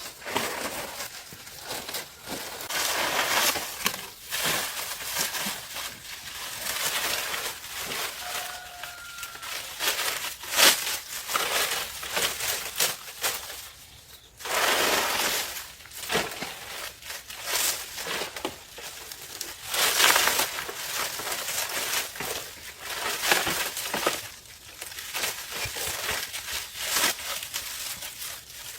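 Irregular crinkling and crunching handling noises with scattered knocks, coming in uneven bursts, as of materials being moved and worked by hand.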